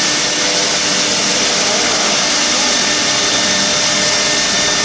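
OMNI 1530 ATC CNC router with a saw-blade head, running with a steady whine over a loud hiss.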